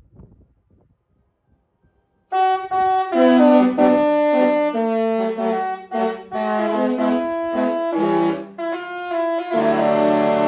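Disney Destiny cruise ship's musical horn playing a tune: after about two seconds of near silence it sounds held notes in changing chords, broken by a few short pauses.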